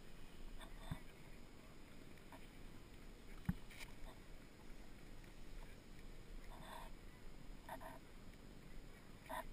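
Faint rustling of a snowboarder's jacket and gloves against a chest-mounted action camera while he adjusts a glove strap, with one sharp knock on the camera about three and a half seconds in and a few short scratchy rubs later.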